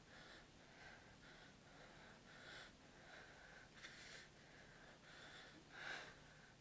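Faint, ragged breathing of a wounded man: short breaths in and out, one or two a second, with a louder gasp near the end.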